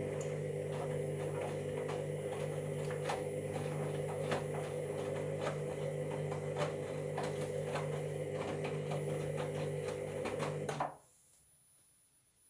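Washing machine motor turning the drum during a tumble, a steady hum with a string of irregular clicks and knocks, then stopping abruptly about eleven seconds in. The noises come from a machine with a drum and motor fault.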